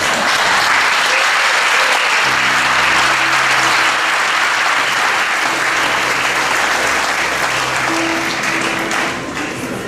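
Audience applause at the end of a comedy sketch, with music coming in beneath it about two seconds in as a few held low notes.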